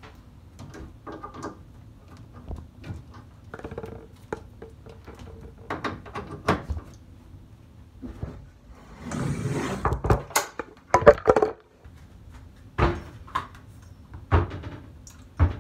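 Scattered clicks and knocks from objects being handled, with a short rustle about nine seconds in and a few sharper clicks after it.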